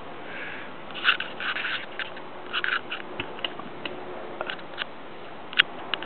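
Soft, irregular crackling and rustling, a string of short small sounds from about a second in to near the end, over a faint steady hiss.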